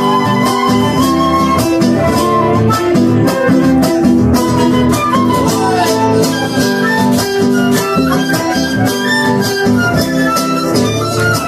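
Live Argentine folk music: strummed acoustic guitars keeping a steady rhythm under a sustained transverse flute melody.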